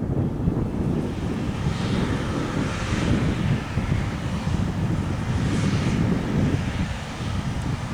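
New Holland CR8.90 combine harvester running, a steady machine drone mixed with heavy wind buffeting on the microphone. A broad hiss swells twice, around two to three seconds in and again near six seconds.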